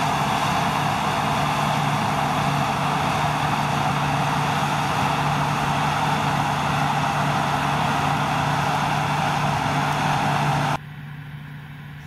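New Holland CX8.70 combine harvester working under load while harvesting barley: a steady engine hum under a loud, even rush of threshing machinery as straw is thrown out of the back. About eleven seconds in the sound cuts abruptly to a quieter, steady engine.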